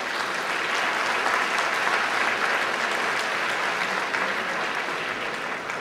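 Audience applauding, a dense, even clapping that tails off near the end.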